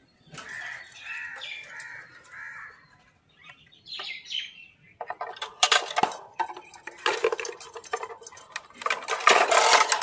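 Budgerigars chirping in the first few seconds. Then, from about five seconds in, the wire cage rattles and clinks while a nest box is worked in through its opening, loudest near the end.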